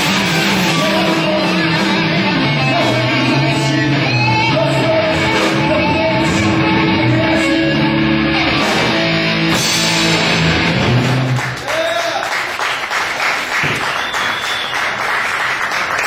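Live rock band with distorted electric guitar playing loud to the end of a song, which stops about eleven seconds in; the crowd then claps.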